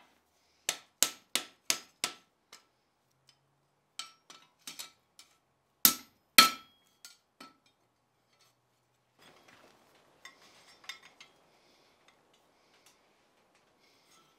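Hand hammer striking hot iron on an anvil, each blow with a short anvil ring. A run of five quick blows opens it, then lighter taps and two heavy blows about halfway. Faint metal clinks follow near the end.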